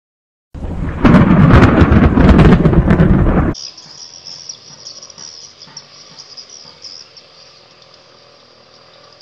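A very loud burst of rough noise for about three seconds that cuts off suddenly, then insects droning steadily in a high pitch.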